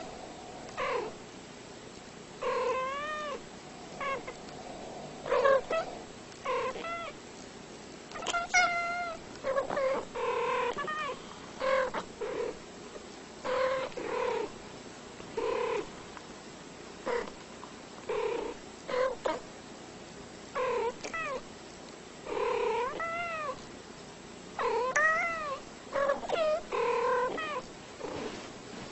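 A cat meowing over and over, short calls roughly one a second, several rising and then falling in pitch.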